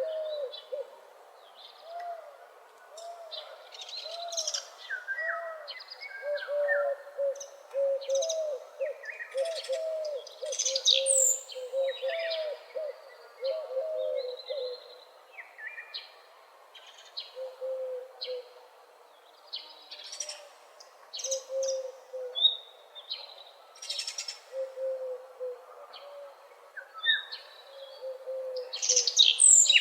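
Several wild birds singing together in a morning chorus: one bird repeats a low call over and over, in quick runs during the first half and more spaced out later, while others add short high chirps and trills on top.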